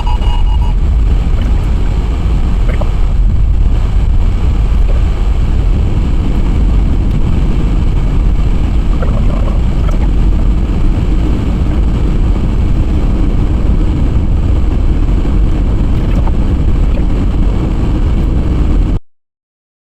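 Strong wind buffeting the microphone: a loud, steady low rumble that stops abruptly about nineteen seconds in.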